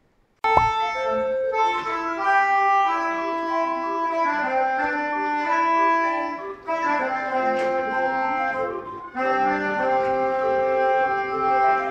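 An antique automatic musical instrument playing a tune in sustained, reedy, organ-like notes. It starts abruptly about half a second in and breaks off twice, near 6.5 s and 9 s, between spliced passages.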